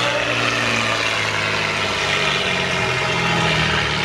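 Off-road trial truck's engine working hard under load as it climbs a steep dirt slope; its note sags, then rises again about three seconds in.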